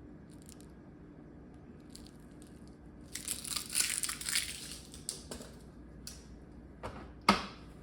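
Plastic packaging crinkling and rustling for about two seconds as it is handled, followed by a few light clicks and one sharp knock near the end.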